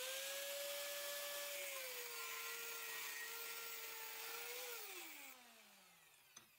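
Angle grinder with a thin cut-off disc spinning up and slicing through 12 mm steel round bar, a steady whine over the hiss of the cut, its pitch dropping a little as the disc bites into the steel. About four and a half seconds in the grinder is switched off and the whine glides down as the disc spins down, with a light clink near the end.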